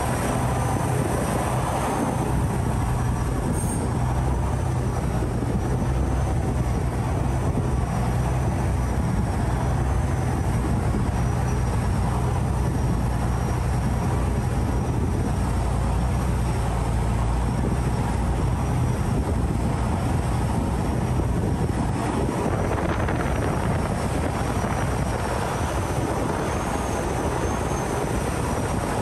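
Loud canal express boat under way, its engine running with a steady low drone over the rush of water and wind.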